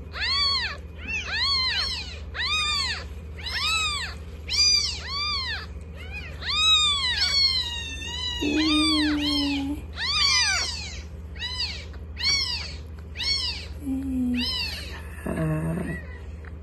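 Newborn kitten, about a week old, mewing over and over: high, thin cries that each rise and fall, a little more than one a second, with a steady low hum underneath.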